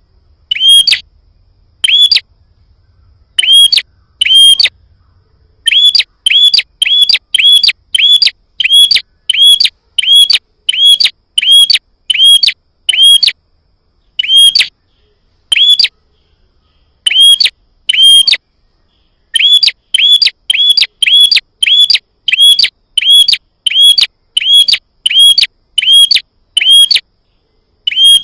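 Prinia (prenjak) calling: short, sharp, hooked chirps, roughly two a second, in runs broken by a few brief pauses. It is a bird-keepers' lure call, played to provoke prinias into answering.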